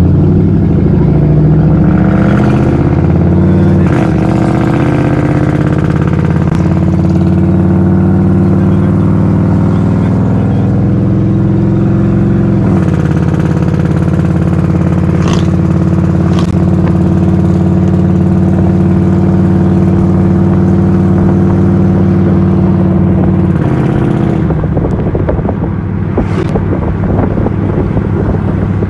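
Motor vehicle engine running loud, its pitch climbing as it speeds up and dropping at about 4 s and again at about 13 s, as with gear changes. It then holds a steady pitch before dropping once more near the end.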